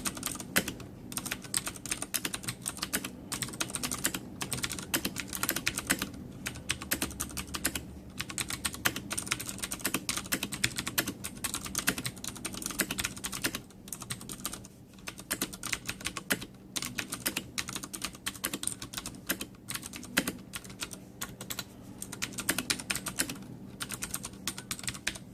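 Fast, continuous typing on a Ducky Zero mechanical keyboard with Cherry MX Blue switches: a dense run of clicky keystrokes, thinning briefly about halfway through.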